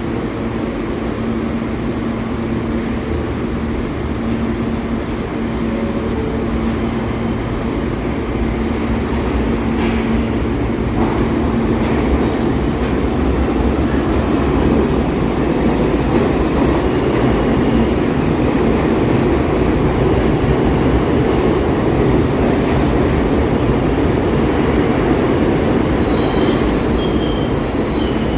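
New York City subway train with SMEE cars running on the rails, a steady rumble growing slightly louder, with a thin high wheel squeal starting near the end.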